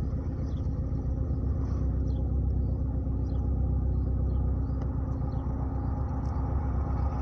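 Chevrolet Chevy's engine and modified exhaust, a welded pipe with a bullet muffler kept together with the catalytic converter, running steadily at low speed with a low rumble.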